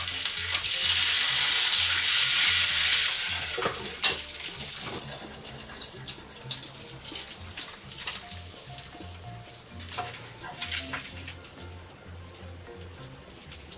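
Mackerel fillets sizzling loudly in an oiled double-sided grill pan. About three seconds in the sizzle drops sharply and carries on more quietly, broken by clicks and knocks of the spatula and the pan.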